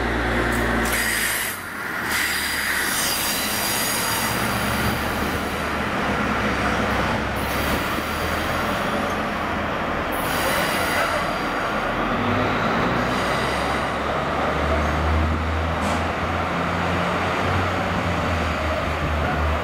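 Diesel-powered subway track geometry car moving over the rails: a steady low engine drone under wheel and rail noise, with high wheel squeal coming and going several times. The engine drone grows louder over the last few seconds as the car draws near.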